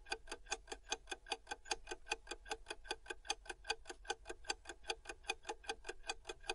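Clock-ticking sound effect counting down a quiz timer: quick, even ticks, about six a second.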